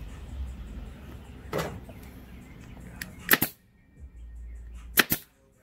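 Pneumatic upholstery staple gun firing staples through vinyl into a seat base: a series of sharp snaps, with a strong one about three and a half seconds in and two in quick succession near the end.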